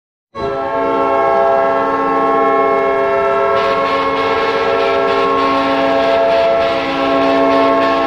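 Winnipeg Jets goal horn: a loud air horn blast held as one long, steady multi-note chord. A rushing noise joins under it about three and a half seconds in.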